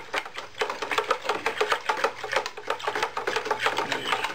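A thin metal rod stirring a plastic bucket of water, knocking rapidly against the sides, several sharp knocks a second with a short ringing tone. The stirring dissolves washing soda into the water to make an electrolysis bath; it stops suddenly near the end.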